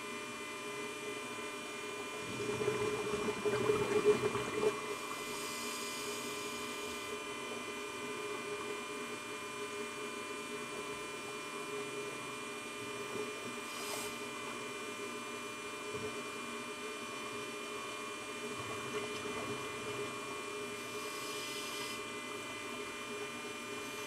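Steady electrical hum from a video camera sealed in an underwater housing, made of many even tones. About three seconds in, a louder rumbling burst of exhaled bubbles from a scuba regulator rises and fades within a couple of seconds.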